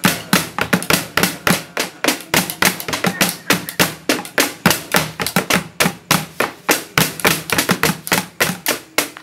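Children's tongprek sahur percussion: sticks beating a bucket and a plastic jerrycan in a fast, steady beat of sharp strikes.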